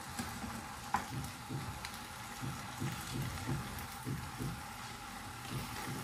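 Wooden spatula stirring sliced lamb liver, onions and green bell pepper in a frying pan: soft, regularly repeated knocks of the strokes over a faint steady sizzle, with one sharp click about a second in.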